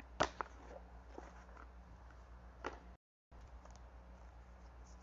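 A tarot deck being handled: a few light clicks and taps, two close together at the start and one more before the middle, over a low steady hum. The sound cuts out completely for a moment about three seconds in.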